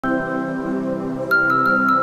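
Background music with sustained notes; a brighter, higher note comes in a little past a second in.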